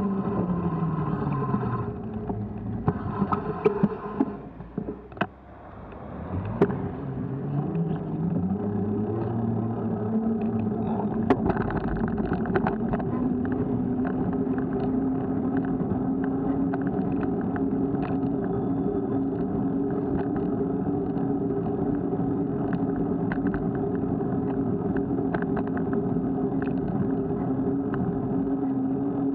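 Motor of a small vehicle carrying the camera: its pitch falls as it slows almost to a stop a few seconds in, then rises as it speeds up again and holds steady while cruising. Road rumble and scattered small knocks run underneath.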